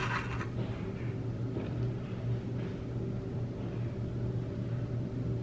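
A steady low hum, like a small motor or appliance running, with a brief rustle of handling near the start.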